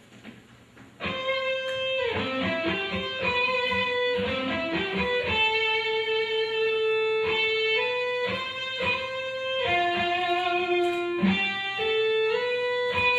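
Electric guitar playing a slow single-note melody, starting about a second in, with held notes and slides between pitches.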